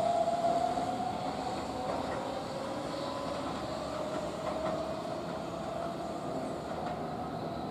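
Keihan electric train moving along the platform, wheels clicking over the rail joints under a thin steady whine that slowly fades.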